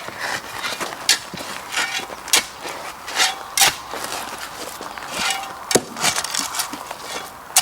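Irregular crunches, scrapes and clicks of a plant being set in and soil being worked by hand while planting.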